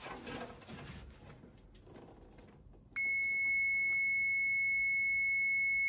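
Faint handling sounds, then about three seconds in the continuity tone of a Snap-on EEDM503D multimeter starts suddenly as a steady high beep and holds. The probe is on the earth pin of the NOx sensor connector, and the tone shows a closed circuit: a good earth.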